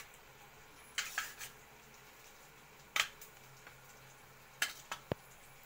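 A steel spoon giving a few scattered short clinks and scrapes against a steel plate as raw anchovies are mixed with their chilli, turmeric and salt marinade.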